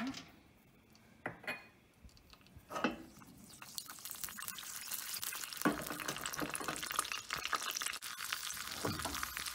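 Cashews and curry leaves frying in hot ghee in a small steel pan, sizzling and crackling. After a few light knocks in the first three seconds, the sizzle builds from about three and a half seconds in and stays steady.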